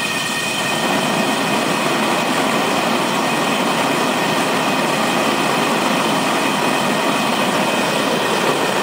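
Homemade venturi propane forge burner, made of pipe with a MIG welding tip as the gas orifice, running at 18 psi: a loud, steady rush of burning gas with a faint steady whistle over it. It swells slightly in the first second.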